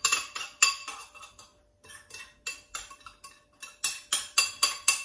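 Metal spoon scraping and tapping sesame paste out of a small bowl into a food-processor jar: quick, irregular clicks and scrapes, with a short pause about a second and a half in.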